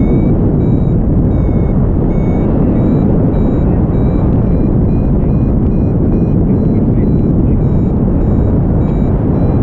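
Wind rushing over the microphone of a paraglider in flight, with a variometer beeping steadily, about two short high beeps a second, the tone it gives while the glider is climbing in lift.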